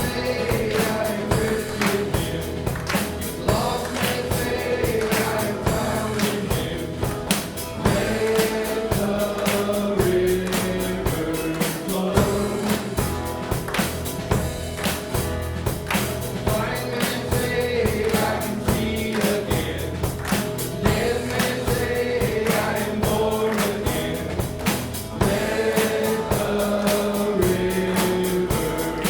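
Live praise-and-worship music: a group of voices singing a melody over instruments with a steady beat.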